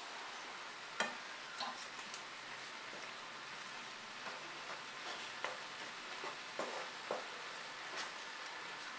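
Tamarind and jaggery boiling in water in a frying pan, a steady bubbling hiss, while a wooden spoon stirs the mixture and knocks against the pan several times, most sharply about a second in.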